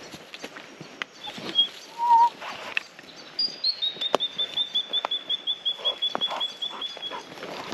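A bird calling a long run of evenly spaced short high notes, about five a second, from about four seconds in. Before it comes a brief loud wavering note, and footsteps crunching with a sharp snap just after four seconds.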